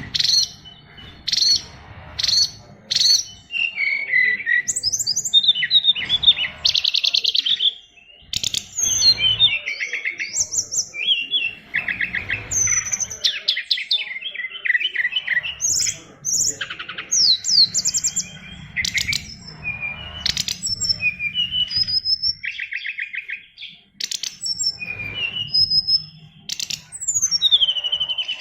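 Caged SRDC songbird singing a long, varied song of whistles, slurred notes, fast trills and sharp clicks, packed with mimicked phrases ('isian luber').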